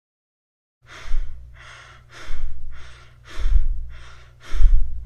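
Fast breathing in quick, even cycles, about one breath a second, starting about a second in, over a low steady hum: the breathing of tachypnoea, a rate above 20 breaths a minute.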